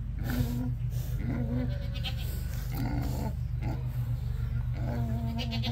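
Pigs giving a series of short, high-pitched whining squeals, about five in quick succession, the last one drawn out longer near the end, over a steady low hum.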